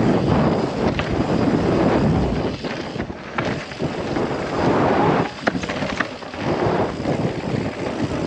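Wind buffeting the microphone and mountain bike tyres rolling over a dirt trail at speed, with a few sharp clicks and rattles from the bike over bumps.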